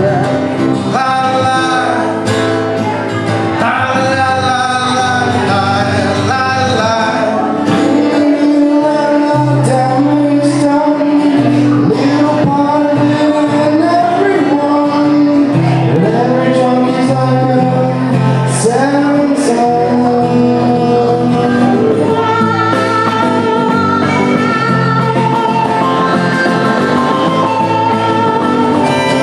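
Live singing with guitar accompaniment, a song performed at an open mic.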